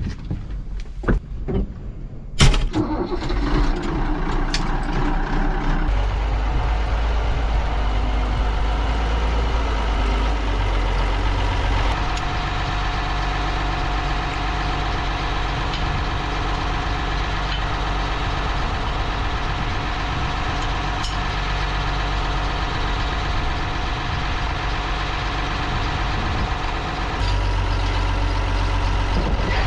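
A few clicks and knocks, then a tractor engine catching about two and a half seconds in and running steadily on; its note shifts a couple of times, around six and twelve seconds in.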